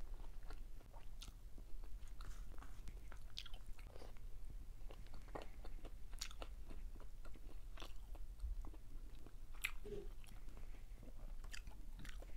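Close-miked eating sounds of a person chewing fried galunggong (round scad): wet mouth clicks and crisp crunches that come irregularly.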